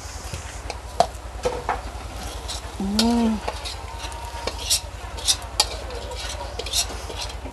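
Metal spatula scraping and clinking against a metal wok as sautéed spice paste is scraped out into a pot, in many short strokes. A brief vocal sound about three seconds in.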